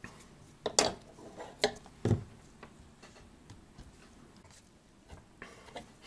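A brass clock-movement plate and metal tools being handled on a workbench: a few sharp knocks and clatters, the loudest about a second in and again about two seconds in, then scattered light clicks.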